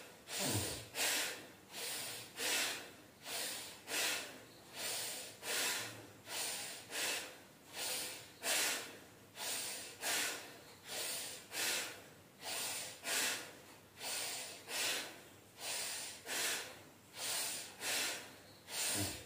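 A woman breathing forcefully in and out in a quick, even rhythm, a little more than one breath a second, each breath a short hissing rush: a yoga breathing exercise done in time with raising and lowering the arms.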